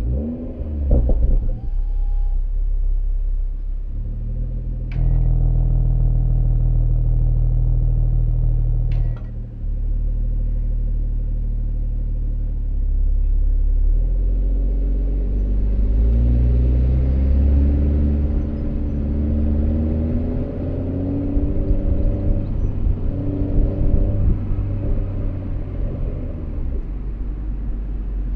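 Exhaust note of a stock BMW M340i's 3.0-litre turbocharged inline-six, heard right at the tailpipe in SPORT+ mode while driving. It holds a steady low drone with two brief sharp cracks about four seconds apart, then pulls harder, its pitch rising again and again and dropping at each upshift of the 8-speed automatic.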